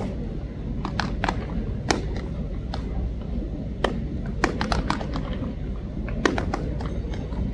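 Baseballs popping into leather gloves as players play catch: sharp smacks at uneven spacing, about one a second and sometimes two close together, over a steady low background noise.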